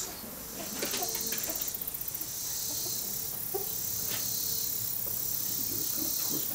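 A steady high-pitched drone of insects, with a few faint knocks and rustles from the wire cage and straw being handled.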